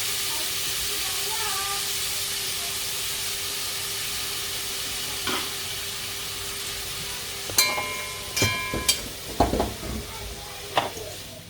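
Chicken frying in a pan with chopped onions, peppers and tomatoes just added: a steady sizzle that slowly dies down. From about three-quarters of the way in, several sharp metal clinks and knocks of a utensil against the pan.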